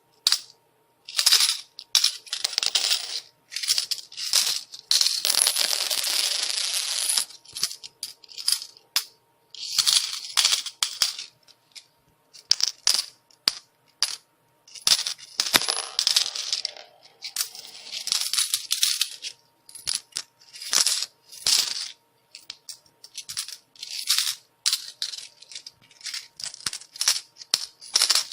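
Metal coins falling and pouring, clinking against each other in repeated spills. Some are short bursts and some are longer pours of one to two seconds, with brief pauses between them.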